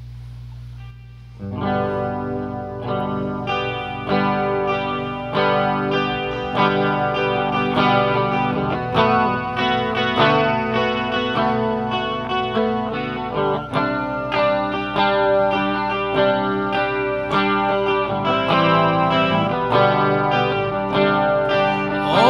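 Electric guitar played through effects, with a second guitar, strumming and picking an instrumental song intro in a steady rhythm; it comes in about a second and a half in, after a low steady hum.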